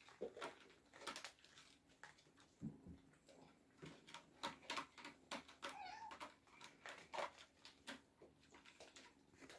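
An Oriental cat meows once, briefly, about six seconds in, amid soft scattered clicks and rustles.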